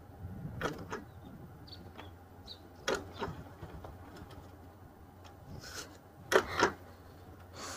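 A Honda Activa scooter being kick-started, with three short clattering strokes about a second, three seconds and six and a half seconds in, over a low steady hum.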